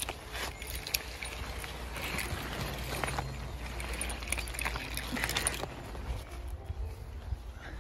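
Footsteps on wet, muddy grass with rustling of bare twigs, irregular and busiest for the first five seconds or so, then lighter.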